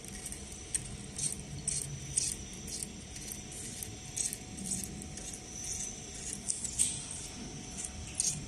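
BBA-6331HX automatic soldering machine at work: irregular short, high-pitched clicks and hisses, about one or two a second, over a faint steady hum.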